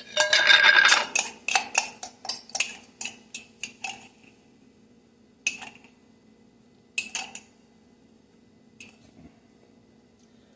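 A metal screw lid unscrewed from a small glass jar with a gritty, clattering rasp, then a small metal spoon clinking and scraping against the inside of the glass jar as it scoops out sugar, in quick clicks at first and then a few separate clinks.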